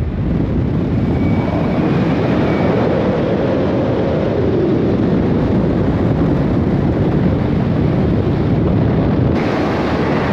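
Steady, loud rushing rumble of a vehicle on the move, mixed with wind noise, with no clear engine note; the sound gets a little brighter about nine seconds in.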